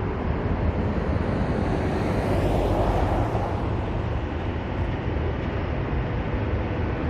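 Steady road-traffic noise with wind rumbling on the microphone, swelling as a vehicle passes about two to three seconds in.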